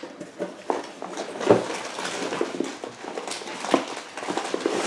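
Crackling and rustling of snack packaging being handled, with a few sharper clicks.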